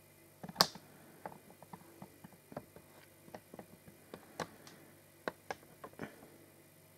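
Irregular light clicks and taps, about fifteen of them, with one sharper click about half a second in and the last near the end.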